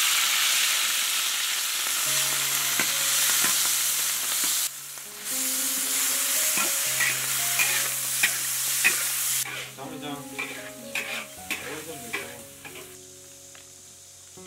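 Pickled chillies frying in hot oil in a wok, sizzling loudly. A second loud stretch of sizzling begins about five seconds in as sliced bamboo shoots are stir-fried, with a spatula scraping and clicking against the wok. The sizzle drops away after about nine seconds, leaving a few clicks over soft background music.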